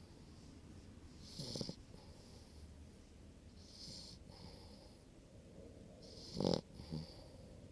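A sleeping puppy snoring: slow breaths about every two and a half seconds, each a hissy wheeze, some with a low snort in it. The loudest snort comes about six and a half seconds in.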